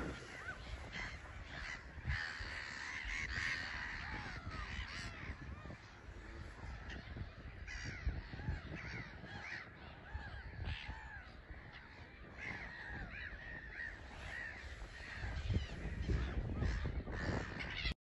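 A colony of black-headed gulls calling, with many short, harsh calls overlapping without pause. Underneath runs a low rumble that grows stronger in the last few seconds, and everything cuts off abruptly at the end.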